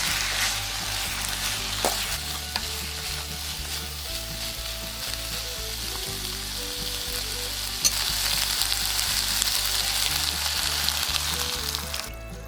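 Food sizzling and being stirred in a hot wok or pan, a steady hiss that cuts off suddenly near the end, with a single sharp tap about two-thirds of the way through. Background music with a steady beat plays underneath.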